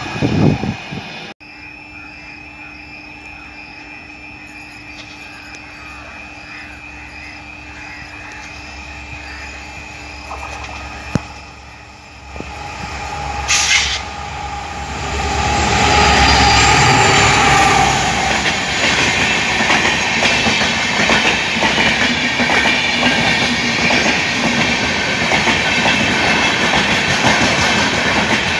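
Indian Railways diesel locomotive and its train of coaches approaching and passing at speed: a low drone builds slowly, then the passing coaches give a loud, continuous rush of wheel and rail noise with rapid clickety-clack. A louder stretch of train noise cuts off abruptly just over a second in.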